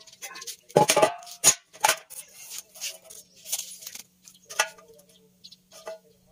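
Square steel tubing handled on a wooden workbench: a loud metallic clank with a short ring about a second in, then several lighter knocks and some rubbing and scraping against the steel. A faint steady hum joins about halfway through.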